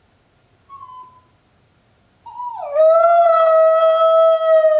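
Miniature poodle puppy left home alone, crying out in distress: a short, high whine about a second in, then a long howl that slides down in pitch at the start and then holds steady.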